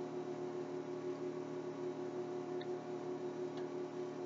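Quiet room tone with a steady low electrical hum, and two or three faint ticks partway through.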